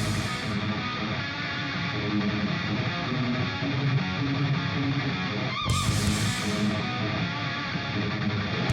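Background music with electric guitar and a steady beat.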